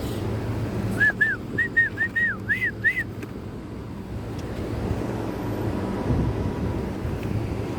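A quick run of about eight short, high chirping whistles, each rising and falling in pitch, over a low steady hum.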